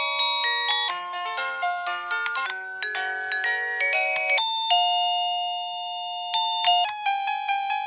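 Electronic chime melodies from a Hivernou wireless doorbell's plug-in receiver, cycled through one tune after another. Each tune breaks off with a click as the next begins. In the middle one long two-note ding-dong is held for about two seconds.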